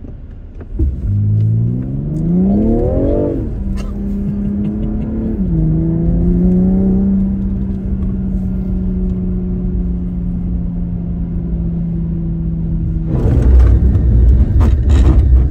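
Car engine accelerating hard: its note climbs, drops at two upshifts, then holds steady at cruising speed. About two seconds before the end, a loud rush of tyre spray sets in as the car runs onto the wet aquaplaning track, heard from inside the cabin.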